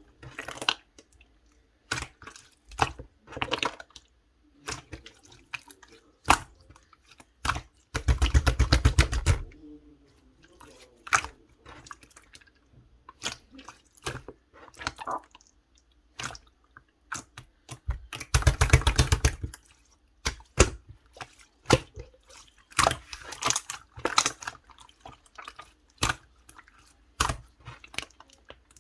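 Clear slime being squished and pressed by hand: irregular wet clicks and pops, with two longer runs of rapid crackling, about 8 and 18 seconds in.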